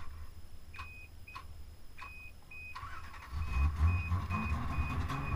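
Car warning chime beeping in short, even beeps about twice a second; about three seconds in a whine comes in and the Celica Supra's 7M-GE straight-six catches and runs with a steady low rumble.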